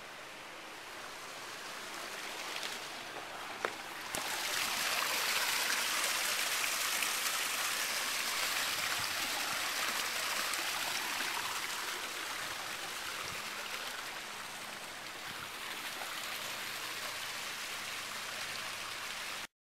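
Water pouring over a landscaped boulder waterfall into a pool, a steady rush and splash that grows louder about four seconds in, with a single short click just before.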